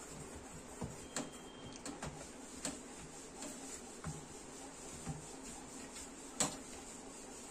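Biscuit dough being kneaded by hand on a steel plate: faint, irregular taps and knocks as the dough and hand press against the metal, with one sharper knock near the end.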